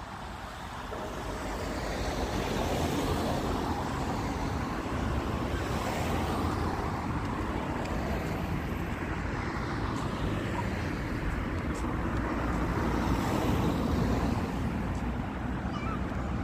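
Road traffic: several vehicles pass one after another, each a swelling rush of engine and tyre noise over a steady low rumble.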